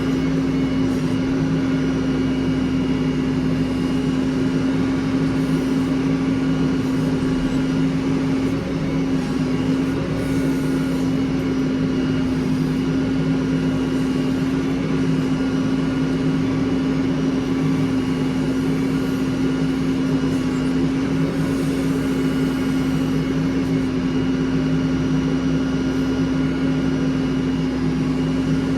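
Heavy diesel engine running steadily at constant speed, with a steady droning tone that does not rise or fall.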